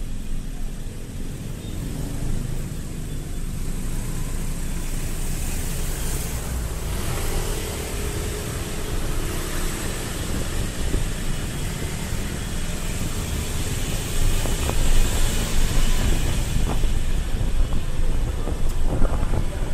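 Steady rush of wind and road noise with an engine running underneath, heard from a camera riding on a moving vehicle through town streets. It grows louder about fourteen seconds in.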